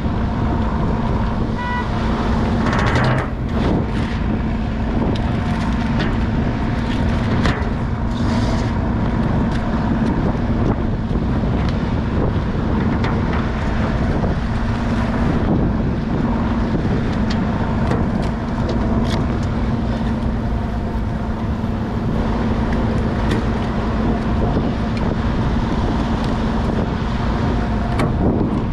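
Crab boat's engine running steadily with a constant hum under wind and water noise, with occasional knocks and a short high tone about two seconds in.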